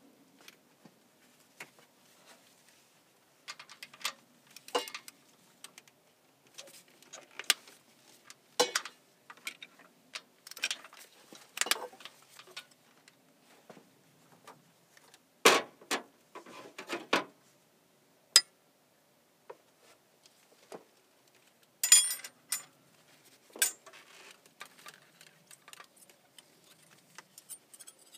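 Scattered metallic clicks and clinks of hand tools, a wrench and a feeler gauge, working on the rocker arms of a Cummins 5.9 diesel during a valve lash adjustment, with a brief ringing clink a little past halfway.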